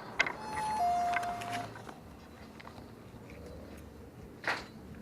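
Shop door entry chime: a click, then two descending electronic tones, the second held longer. A short rustle comes near the end.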